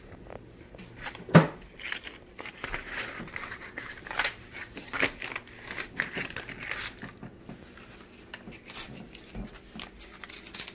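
Paper crinkling and rustling as a sheet of sandpaper is handled and folded, in irregular scratchy bursts, with one sharp click about a second and a half in.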